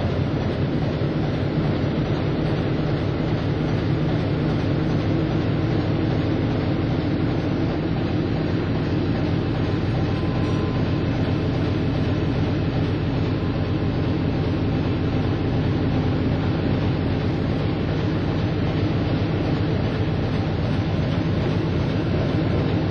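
Submarine sound effect: a steady low machinery rumble and hum that holds even throughout, with faint steady tones above it.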